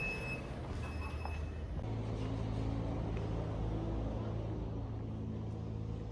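A lift beeps twice as its doors slide open. Then comes the steady, low hum of a nearby vehicle engine running.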